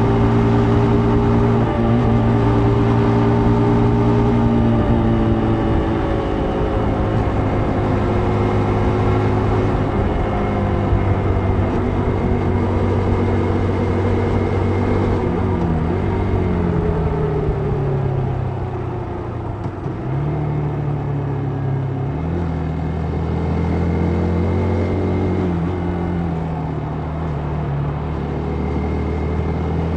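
Vehicle engine running on the move, its pitch falling as it slows between about 15 and 20 seconds in, then holding lower and rising again near the end, over a steady rush of wind and road noise.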